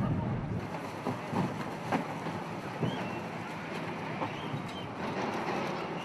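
Water sloshing and splashing around a close-packed flock of mute swans, with wind noise on the microphone and a few sharp knocks about one, two and three seconds in.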